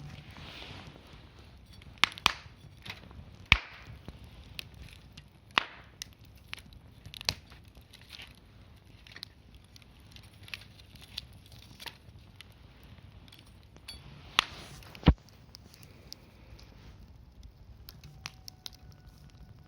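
Wood fire crackling, with irregular sharp pops and snaps, a few of them loud.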